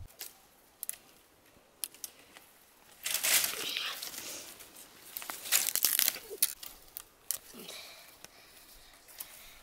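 Dry brush rustling and crackling, with sharp snaps of twigs, as dead branches are dragged and pulled out of tangled scrub by hand. There are scattered single snaps and two loud bursts of crackling, about three seconds in and again near the six-second mark.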